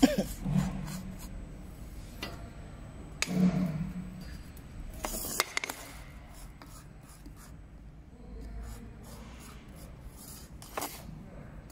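Lidded jars being handled, set down and slid across a stainless steel turntable: rubbing and scraping with scattered knocks, loudest at the start, around three to five seconds in and once near the end.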